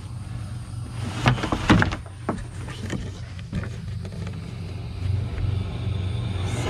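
Steady low mechanical hum, like a motor running, with a short run of scrapes and knocks between about one and three and a half seconds in.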